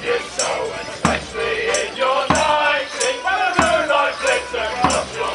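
Border Morris dance band playing: accordions carry a lively tune over a bass drum beating steadily, about three beats every two seconds.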